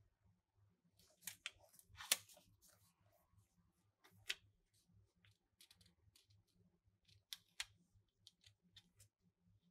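Paper being handled close up as a small photo print is positioned and pressed onto a collage page in a spiral notebook: scattered short, crisp crackles and taps, the sharpest about two seconds in and a few more near the middle and towards the end.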